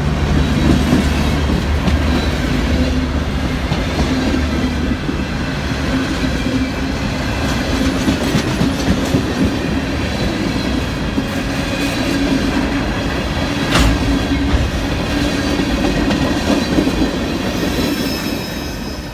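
A train rolling past: steady rumble and clickety-clack of wheels over the rails, with faint wheel squeal and one sharp click a little after halfway. The sound fades out near the end.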